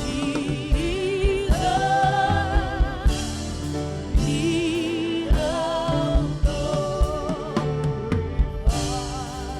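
Live gospel worship music: a singer holds long notes with vibrato over a band with a steady drum beat and bass.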